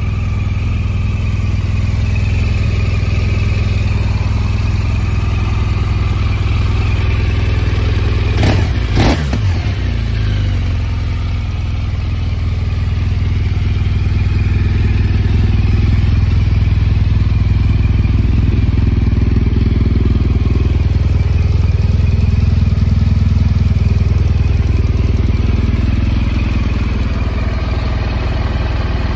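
BMW GS Adventure's boxer-twin engine idling steadily in neutral, with a brief clatter about nine seconds in.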